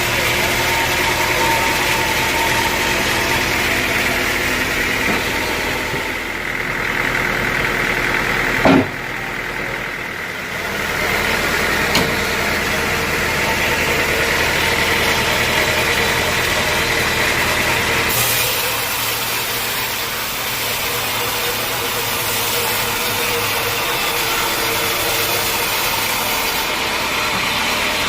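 Sawmill machinery running steadily, with a sharp knock about nine seconds in and a lighter one about three seconds later; the sound turns higher and hissier about eighteen seconds in.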